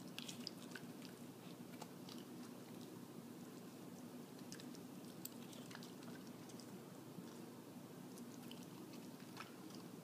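A corgi chewing and biting noodles taken off wooden chopsticks: faint scattered clicks and smacks of its mouth, over a steady low hum.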